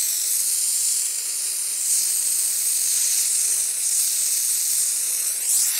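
Oxyacetylene torch flame hissing steadily, heating a 10 mm steel rivet for hot riveting; the hiss wavers briefly near the end.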